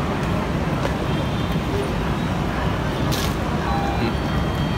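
Steady low rumble of city street traffic, with a brief hiss about three seconds in.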